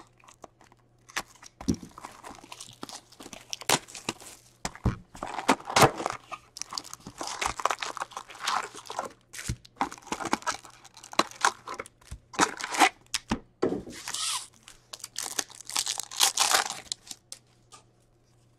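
Foil packs of 2017-18 Upper Deck Series One hockey cards being ripped open one after another: a run of sharp tearing and crinkling of the wrappers, which dies away near the end.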